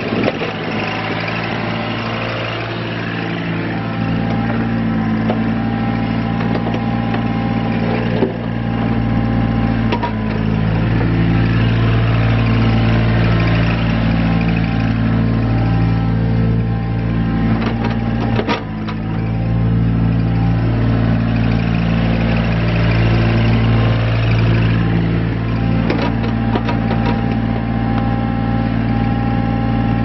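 The diesel engine of a 2001 Komatsu PC35R-8 mini excavator runs steadily under hydraulic load while the upper structure swings and the boom and bucket move. It gets louder about four seconds in and dips briefly about halfway through, with a couple of short knocks from the machine.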